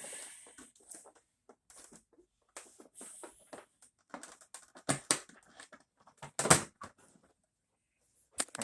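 Handling noises from a mini fridge being opened and handled: scattered clicks, knocks and rustles, with two louder knocks about five and six and a half seconds in.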